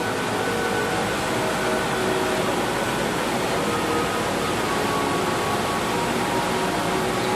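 Steady roar of a Cessna 172's engine and propeller heard inside the cabin, with a melody of music playing over it.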